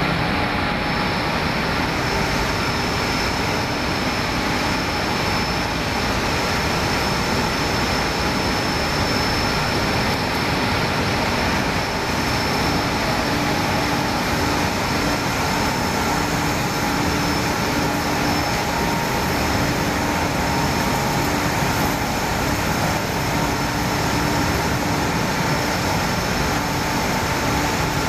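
Textile-waste opening line for making cotton fibre running steadily: the even mechanical noise of its rollers, chain and belt drives and electric motors, with a faint constant high whine.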